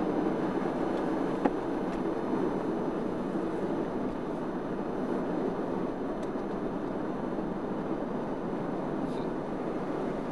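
Steady engine and tyre noise heard inside a car's cabin while driving on wet asphalt, with a single sharp click about a second and a half in.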